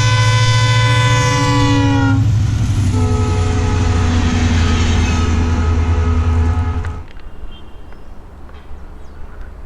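Train passing at high speed while its locomotive sounds a long horn blast: a chord of several tones that drops in pitch about two and a half seconds in as the locomotive goes by, over a heavy low engine rumble. The sound falls away sharply about seven seconds in.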